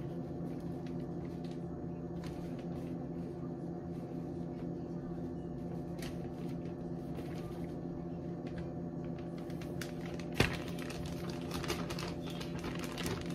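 Flour being poured from a plastic zip-top bag back into a canister, with faint crinkles and rustles of the bag over a steady low hum. A single sharp knock comes about ten seconds in.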